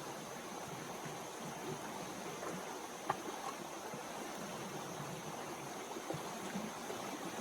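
Steady rushing of a river running high in flood, with one short click about three seconds in.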